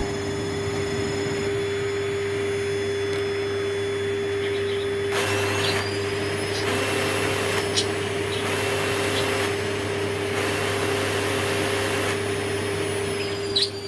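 Panasonic MC-PA100G paper-bag canister vacuum cleaner running steadily with a constant whine. About five seconds in, its sound becomes fuller, shifting a little several times after that, and there is a click near the end.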